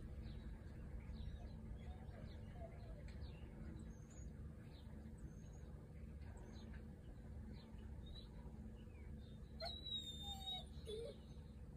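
Faint outdoor background with scattered small bird chirps over a steady low rumble. About ten seconds in, a dog gives a brief whine.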